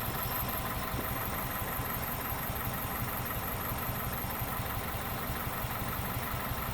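2001 Toyota Corolla 1.8-litre four-cylinder engine idling steadily with a misfire on cylinder number 3, which the mechanic puts down to a fouled spark plug.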